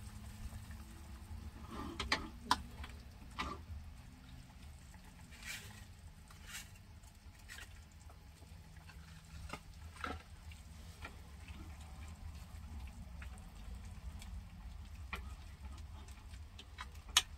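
Faint scattered taps, clicks and rustles as powdered gravy mix is shaken from a packet into a saucepan of stew and stirred in with a wooden spoon, over a low steady hum.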